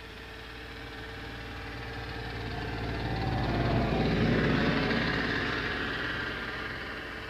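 A motor passing by: its engine sound grows louder to a peak about four seconds in, then fades away.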